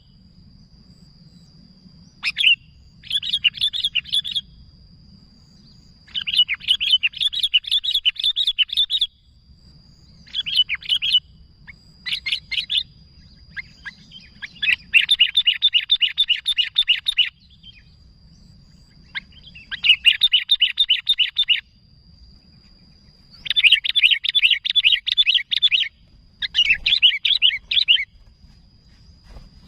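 Sooty-headed bulbul (kutilang) chattering in lively bursts of rapid repeated notes, about eight bursts of one to three seconds each separated by short pauses. It is excited calling of the kind used to lure other bulbuls.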